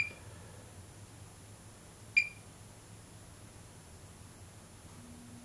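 Three short, high electronic beeps from a test meter measuring an old capacitor: one at the start, one about two seconds in, and one at the end.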